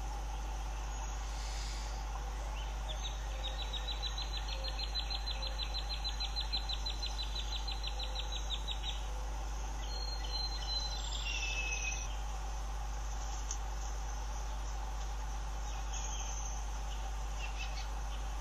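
Outdoor wildlife-cam ambience over a steady low hum. A high, rapid, evenly pulsed trill from a small bird or insect runs for about six seconds, and a couple of short whistled notes falling in pitch follow.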